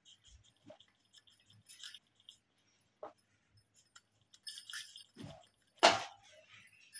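Coloured pencil scratching on a colouring-book page in short strokes, with faint small clinks and taps. Near the end comes one sharper knock, the loudest sound.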